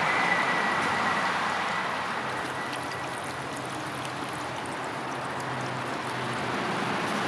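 Shallow brook water running over stones and silt, a steady watery rush that dips a little in the middle and grows louder again near the end.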